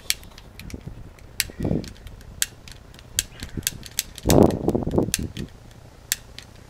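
Piezo igniter of a cheap long-nosed utility lighter clicking over and over, at an uneven pace, as it is worked to light an alcohol-soaked coil and fails to catch at first. A louder, muffled burst of noise comes about four seconds in.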